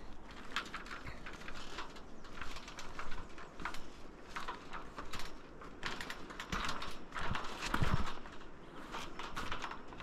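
Footsteps on the wooden plank deck of a suspension bridge: irregular knocks and taps, a few a second, with a couple of heavier thumps in the second half.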